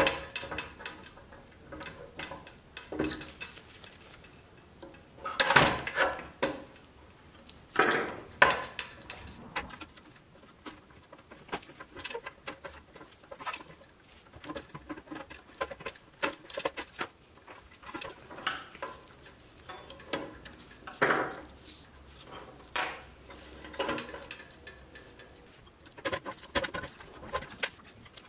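Thin metal pick scraping and clicking against the metal hubcaps of a 1960 Tonka toy truck's wheels as they are pried off, in irregular taps and short scrapes, loudest about five, eight and twenty-one seconds in.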